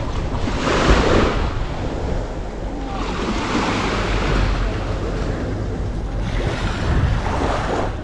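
Small sea waves washing up onto the beach, swelling and fading in three surges, over a steady low rumble of wind on the microphone.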